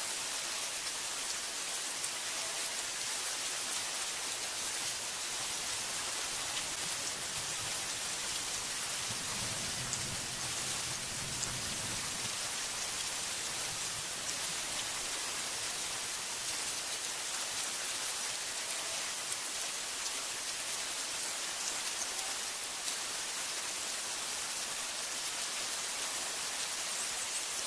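Heavy rain falling steadily on forest foliage, a dense even hiss. A soft low rumble rises and fades about ten seconds in.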